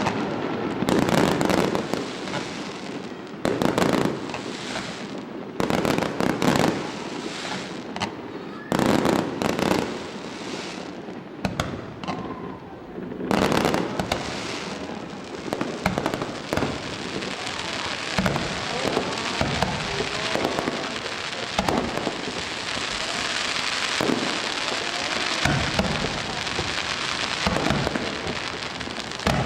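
Aerial fireworks bursting: separate loud booms every second or two, then from about halfway a dense, continuous crackle of many small bursts with an occasional thud.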